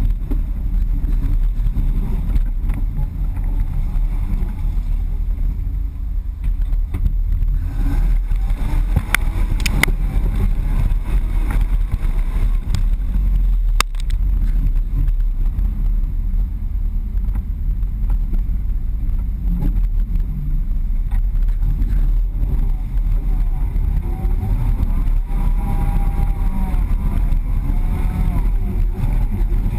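Ford Bronco's engine running as the truck drives a flooded, muddy off-road trail, a heavy low rumble picked up by a camera mounted on the truck's body, with a few sharp knocks from the trail and the engine's pitch rising and falling a few times near the end.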